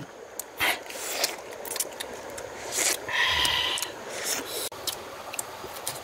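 Scattered rustling, scraping and clicking handling noises, with a brief hiss about three seconds in.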